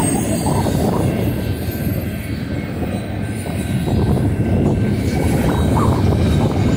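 BNSF double-stack intermodal freight train rolling past: a loud, steady rumble of steel wheels on the rails, easing slightly for a moment partway through before picking up again.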